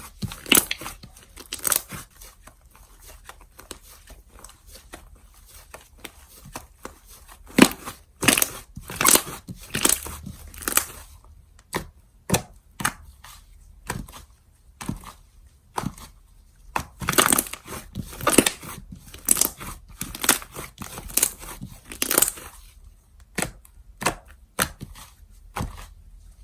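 Slime being squeezed, pressed and stretched by hand, giving irregular runs of sharp crackling clicks and pops with short quiet gaps between them.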